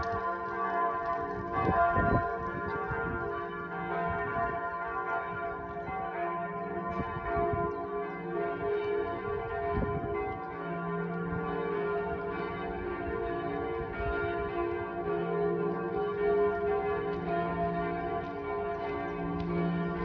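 Several church bells of different pitches pealing together, struck over and over so their ringing overlaps without a break.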